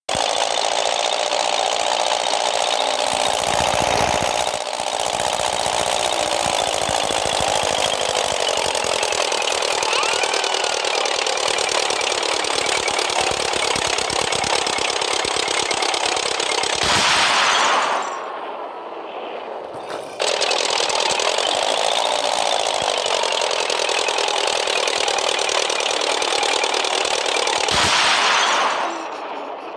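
Light aircraft's piston engine and propeller running hard with a rapid, rattling drone, its pitch slowly wavering. The sound drops away abruptly for about two seconds past the middle, comes back, then falls away again near the end.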